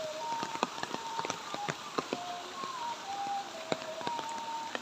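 Steady rain falling, with many sharp taps of close drops hitting a surface. A thin, wavering whistle-like tone comes and goes over the rain.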